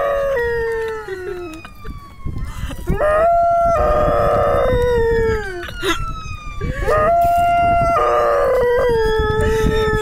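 A Dalmatian howling in long howls, one trailing off about a second and a half in and two more starting about three and seven seconds in, each sliding down in pitch at its end. Under them an ambulance siren wails, its pitch sliding slowly up and down.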